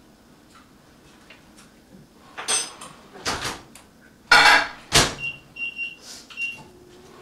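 Camera trolley rolling along a homemade slider rail, pushed back and forth by hand: a few rushing, scraping passes, the loudest about four to five seconds in, followed by short high squeaks.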